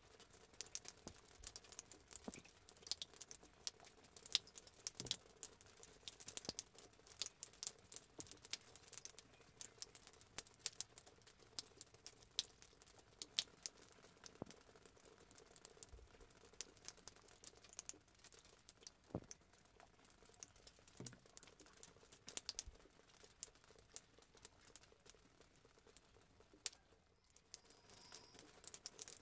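Faint, irregular patter of many small ticks and clicks, as from raindrops dripping after rain, over a low steady hum.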